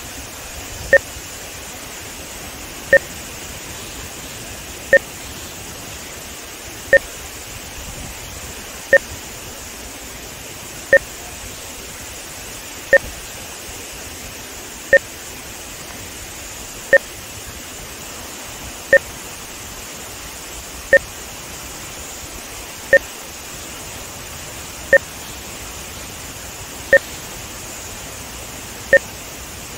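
Short electronic test beeps, one every two seconds, each a brief two-tone pip, inserted as timing markers for audio-video sync measurement. Beneath them runs a steady rush of water spilling through the dam.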